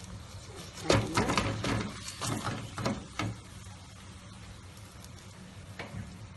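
A spatula clattering and scraping against a metal pan as a feteer pastry is flipped: a cluster of knocks over about two seconds, then one more tap near the end. A low steady hum runs underneath.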